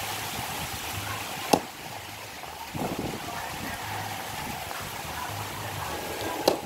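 Axe chopping into a dry log while splitting firewood: two sharp strikes, one about a second and a half in and another near the end.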